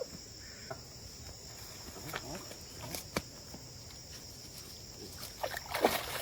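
Steady, high-pitched chorus of insects, with a few sharp clicks and a short louder burst near the end.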